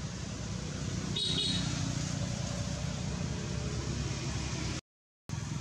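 Steady low outdoor background rumble with a short high-pitched squeak about a second in. The sound cuts out completely for about half a second near the end.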